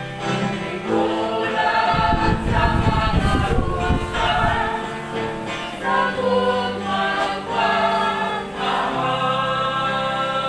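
A group of voices singing a hymn together in long, held notes. A low rumble sounds under the singing from about two seconds in until about four and a half seconds in.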